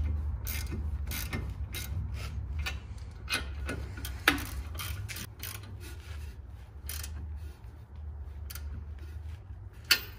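Socket ratchet clicking in repeated strokes as the nuts on the top of a coilover are tightened, with a couple of sharper metal clinks, over a low steady hum.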